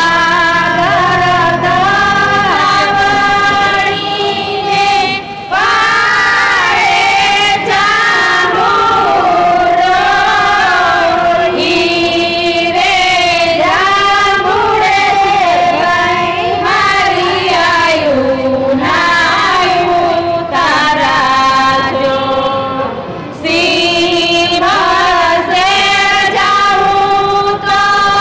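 A chorus of women's voices singing a traditional Gujarati wedding song (lagna geet) in unison, with brief breaks between lines.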